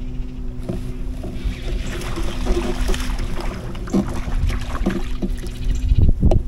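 Kayak on moving water: a steady low hum with water sloshing and scattered light knocks against the hull. Heavy low rumbles of wind on the microphone come in near the end.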